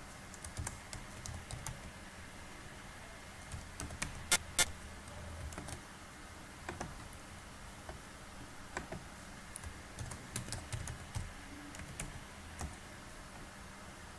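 Computer keyboard typing: irregular, scattered keystrokes, with two louder sharp clicks about four seconds in.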